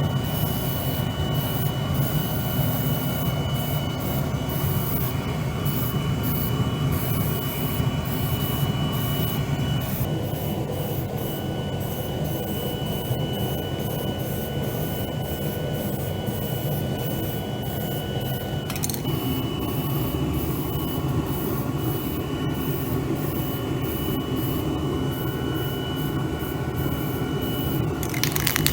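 Homemade waste-oil burner stove running with a steady roaring hiss, a low hum and a thin high whine.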